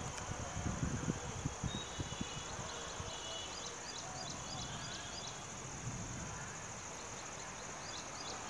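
Crickets trilling steadily in a high pulsing chorus, with short repeated high chirps over it and uneven low thumps and rumbles.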